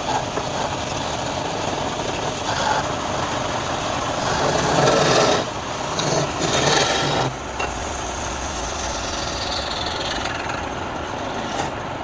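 Wood lathe running while the spinning wood is worked by hand, a continuous rough scraping that is loudest about five seconds in and eases off around seven seconds in.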